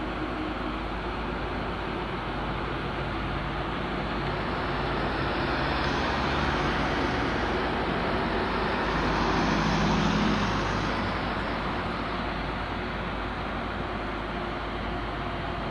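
Steady motor-vehicle engine and road noise that swells twice, about six and ten seconds in, the way passing vehicles do.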